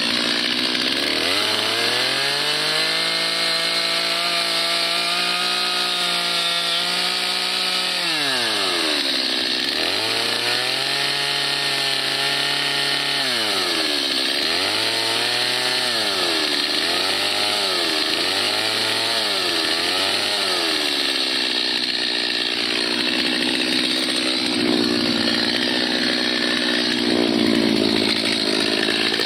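Two-stroke chainsaw carving into a sassafras stump. The engine revs up and holds high for several seconds, drops back, and revs up again for a shorter spell. It then gives about five quick revs in a row before running at a lower, steadier speed near the end.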